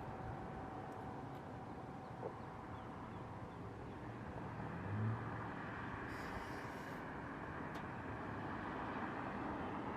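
Faint steady tone of an ATI HPSS-16R electronic siren's alert signal, fading out about three seconds in, under outdoor wind and rumble noise.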